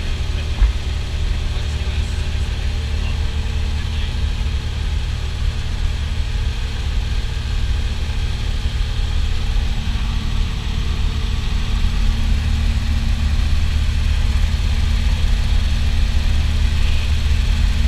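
Light high-wing plane's engine and propeller droning steadily, heard inside the cabin with rushing air noise. It grows louder through the second half as the jump door is opened.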